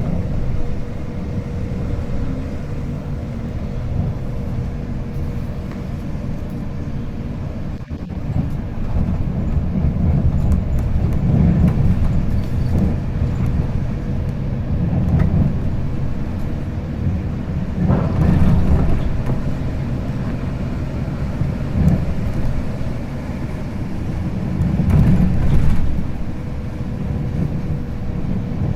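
Inside the cabin of a Scania K410 IB multi-axle coach on the move: the low rumble of its six-cylinder diesel and the road, rising and falling several times, with a faint steady whine.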